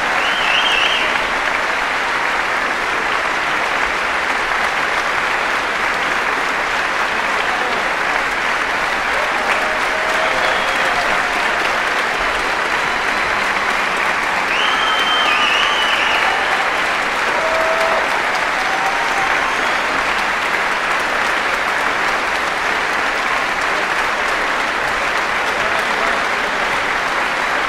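Audience applauding steadily at the close of a concert performance, with a few short calls or whistles rising above the clapping near the start and about halfway through.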